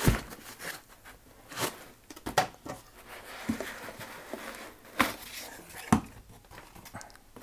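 Handling of packaging as a boxed power inverter is lifted out of its foam end blocks and cardboard box: foam and cardboard rubbing and rustling, broken by several sharp knocks of the unit and box.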